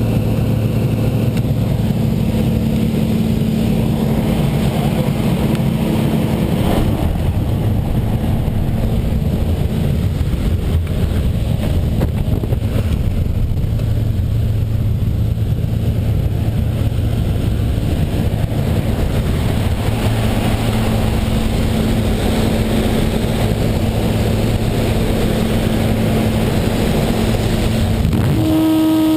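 Single-engine high-wing jump plane's engine and propeller droning steadily, heard from inside the cabin with a steady low hum and a rush of air. A short high tone sounds near the end.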